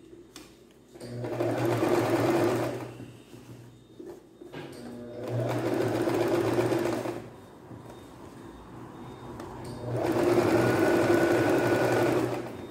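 Singer domestic sewing machine stitching in three runs of about two to three seconds each, stopping briefly between runs.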